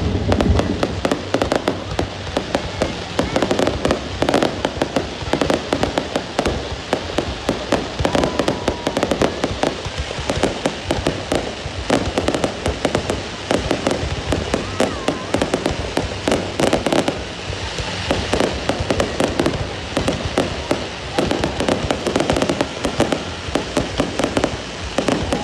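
Fireworks going off continuously as a dense, rapid crackle of many small pops.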